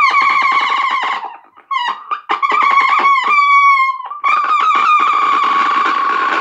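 A high, buzzy note played on something held at the mouth. It slides in pitch and flutters rapidly, breaking off briefly twice before starting again.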